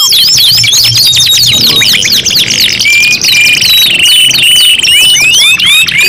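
Several domestic canaries singing at once: fast rolling trills and quick rising and falling whistled notes layered over one another, with a steady buzzy roll held for a second or so around the middle.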